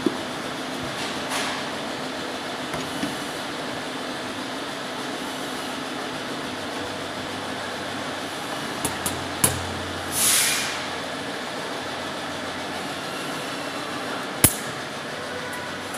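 Steady background hum, with scattered sharp clicks and taps as a hand tool and the small metal parts of a CS3 compressor's check valve are handled on a tabletop. Several clicks come close together about nine seconds in, followed by a brief rushing noise, and one sharper click comes near the end.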